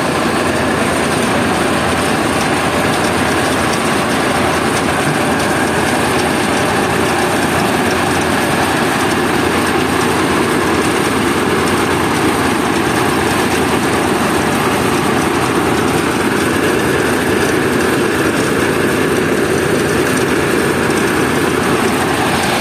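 Mobile rice mill running: its diesel engine and the huller and polisher machinery going together in a steady, loud mechanical din that does not change.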